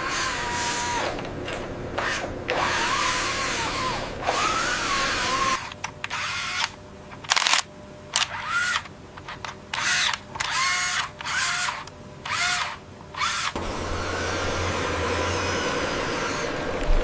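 A small electric motor whirring like a power drill, its pitch rising and falling, continuous at first and then in a string of short bursts; near the end it gives way to a steady low hum.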